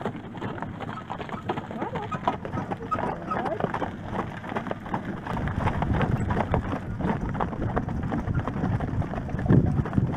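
Hooves of a pair of Friesian horses clip-clopping along a dirt lane while pulling a carriage, mixed with the knocks and rattles of the carriage. There is a louder low rumble near the end.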